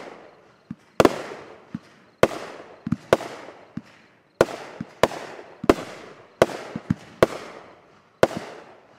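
Aerial fireworks going off in rapid succession, about one loud bang a second, each echoing away, with smaller, duller thuds in between.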